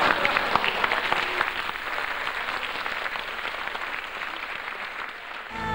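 Theatre audience applauding, a dense patter of clapping that thins out and fades toward the end.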